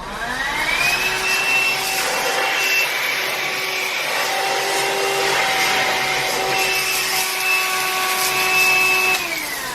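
Black & Decker Dustbuster Flexi cordless handheld vacuum running: its motor whine rises to speed over about a second after switch-on, then holds steady over a hiss of rushing suction air. Near the end the whine starts to fall as the motor winds down.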